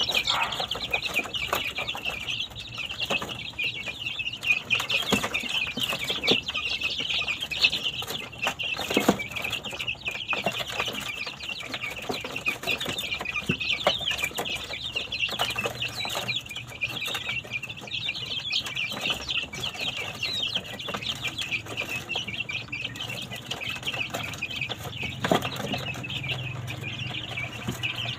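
A brood of young white Thai game chickens (Khao Chee) peeping constantly, many high cheeps overlapping, with occasional scuffling knocks as the birds move about.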